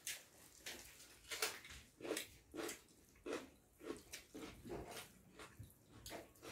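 People eating rice and curry by hand, chewing with soft, repeated mouth sounds about every half second to second.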